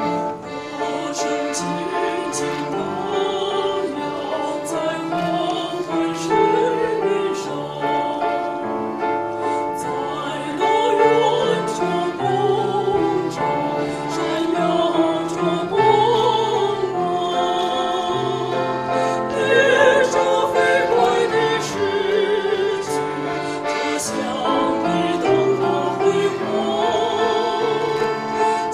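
Female vocal trio singing in a classical, operatic style with vibrato, in harmony, accompanied by an accordion.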